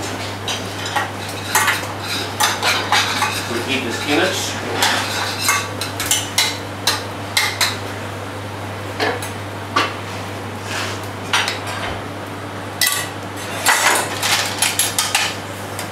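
A metal spoon scraping and clinking against a small stainless-steel saucepan as spinach is stirred and spooned out, in quick irregular runs of clinks with a couple of short pauses, over a steady low hum.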